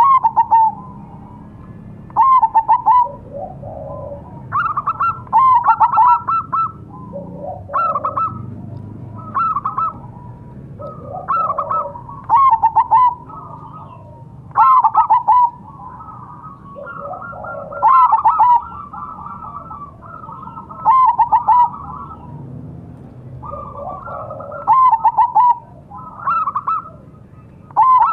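Zebra dove (perkutut) cooing its song: a short burst of rapid staccato notes, repeated every two to three seconds.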